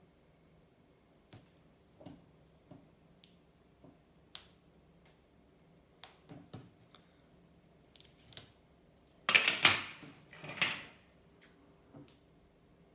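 Clear tape and an aluminium-can shim being worked by hand: scattered light clicks and taps, then two loud rasping bursts a little over nine seconds in.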